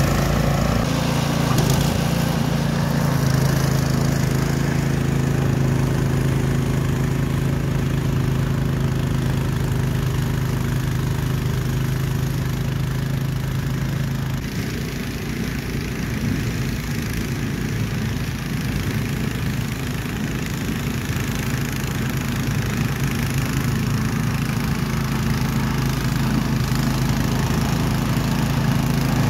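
Craftsman 26-inch two-stage snowblower's gas engine running steadily while the machine throws snow. About halfway through the engine sounds farther off and less clear, then grows louder toward the end as the machine comes closer.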